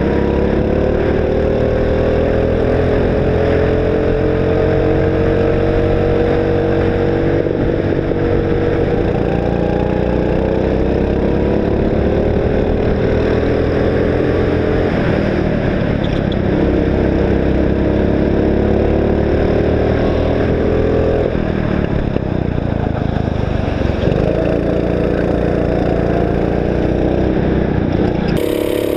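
Sodi go-kart engine running hard, heard from onboard the kart. Its pitch climbs slowly along the straights and falls back quickly a few times, as the driver lifts off for corners, before climbing again.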